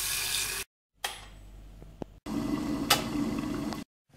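Tap water running into a stainless-steel kettle, cut off abruptly. After brief silent gaps come a click and a quieter stretch, then a louder low rumble with a sharp click in its middle, also cut off abruptly.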